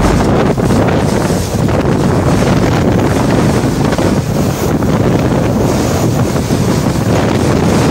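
Category 4 hurricane eyewall winds with wind-driven rain: a loud, steady rushing of wind buffeting the microphone.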